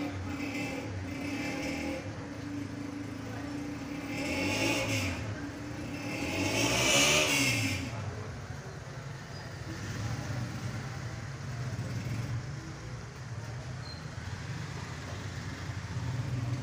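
A motor vehicle passes, with the pitch of its engine rising and then falling. It is loudest about seven seconds in, and a fainter pass comes a couple of seconds before it. A steady low hum runs underneath throughout.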